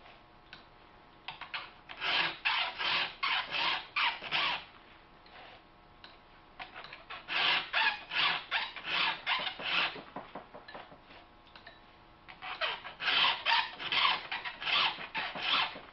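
A file rasping across the cutters of a Husqvarna chainsaw chain held in a filing jig. There are three runs of quick, even strokes, about two to three a second, with short pauses between runs as the next tooth is filed.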